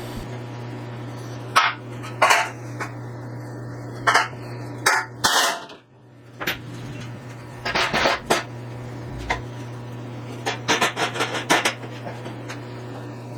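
Irregular clinks and knocks of tools and parts being handled and set down, singly at first and then in quick clusters, the busiest run near the end, over a steady low hum.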